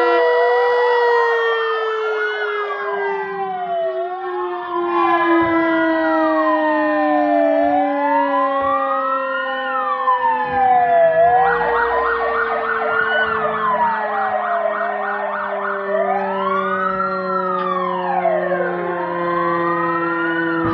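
Several fire engine sirens sounding together: wailing tones rising and falling every couple of seconds, a fast warbling pattern from about 11 to 14 seconds in, over a long steady siren tone that slowly sinks in pitch throughout.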